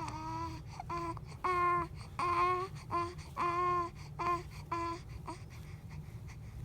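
A baby babbling: a run of about ten short, high-pitched syllables over five seconds, then a pause.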